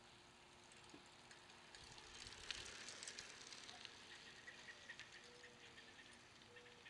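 Inverta tall bike rolling past, faint, with tyre hiss and light clicking from the drivetrain, loudest about two and a half seconds in as it goes by, then fading as it rides away.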